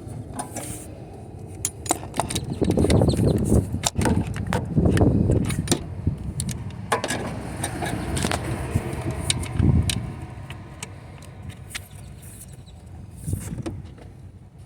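Metal hand tools clinking and clattering against each other and the car's engine parts, with bumps and rumbles of handling, as a nut on the alternator is worked loose.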